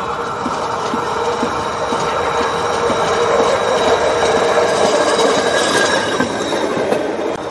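Rail-cum-road ultrasonic rail-testing vehicle running along the railway track toward and past, a steady rolling hum with faint regular clicks about twice a second. It grows louder as it approaches and is loudest as it passes close, about five to six seconds in, then begins to fade.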